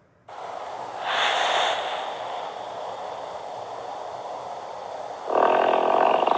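Fart sound effect altered with a voice changer: one long, breathy, noisy blast that swells louder about a second in and again after five seconds, with a fast flutter near the end.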